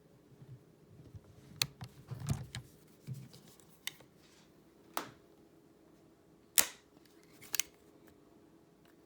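Several sharp, separate clicks and knocks at irregular intervals, the loudest about two-thirds of the way through.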